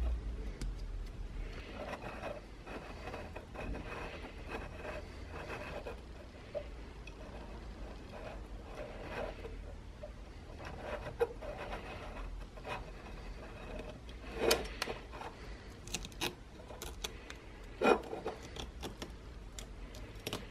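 Fingers and a thin blade rubbing and scraping over silver adhesive tape pressed onto a metal base: a soft, dry rubbing texture with several sharp clicks and ticks, the loudest a little before the end.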